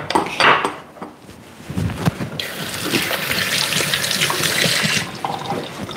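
A kitchen tap runs into a stainless steel sink while a glass is rinsed under it. The water starts about two seconds in and shuts off about five seconds in, after a couple of knocks at the start.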